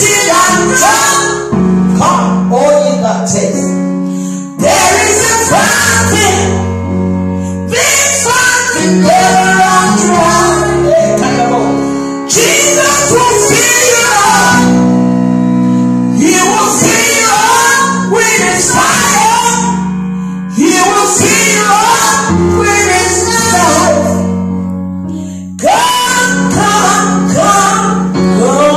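A woman singing a gospel song into a handheld microphone, in phrases a few seconds long, over steady held low chords that change every few seconds.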